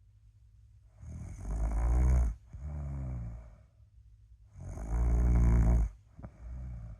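Steady sleep snoring: two loud snores about three and a half seconds apart, each followed by a shorter, softer breath.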